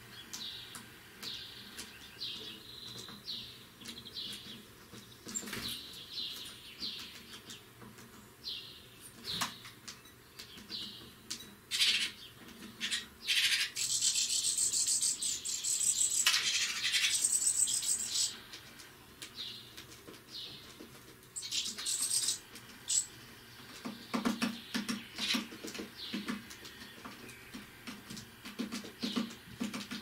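Great tits at a feeder: short high chirping calls about once a second, a few sharp clicks, and a louder high-pitched stretch of sound for a few seconds in the middle. Near the end there is rapid tapping as a bird pecks at food.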